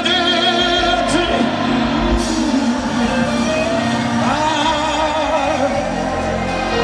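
Live gospel praise music: a singer leading over a band, with long held vocal notes that waver in pitch.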